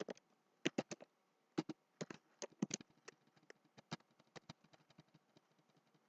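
Computer keyboard typing: irregular key clicks in short quick runs, thinning out and growing fainter about halfway through.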